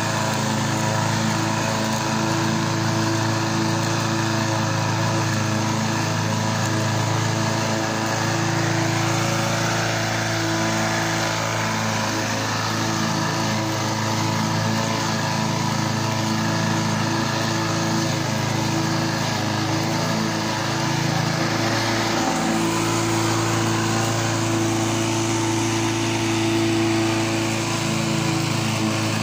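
Petrol walk-behind rotary lawnmower engine running steadily while mowing grass, with a brief wobble in its note a little past two-thirds of the way through.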